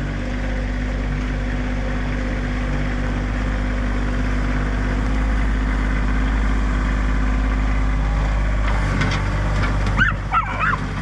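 Kioti CK2610 compact tractor's three-cylinder diesel engine running steadily while dragging a back blade. About nine seconds in, a dog starts whimpering and yipping over it.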